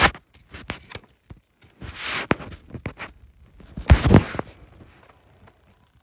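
Handling noise from hands close to the phone's microphone and a paper CD booklet: rustling and scraping in three bursts with scattered clicks. The loudest burst is about four seconds in.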